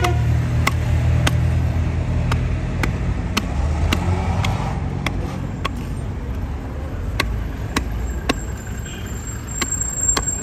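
Small hatchet (tesha) chopping into a block of wood on a stump, sharp strikes coming steadily somewhat under two a second, over the steady low rumble of road traffic and a running vehicle engine.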